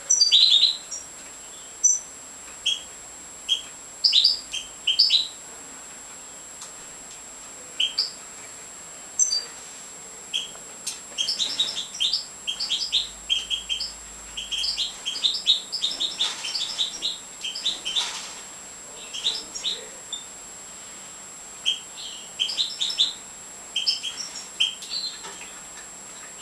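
European goldfinches of the large major subspecies calling in short, high chirps, singly and in quick little runs, busiest through the middle.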